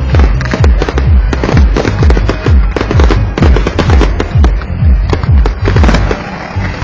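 Fireworks display: a rapid barrage of shell bursts and deep booms, several a second, easing briefly near the end before picking up again.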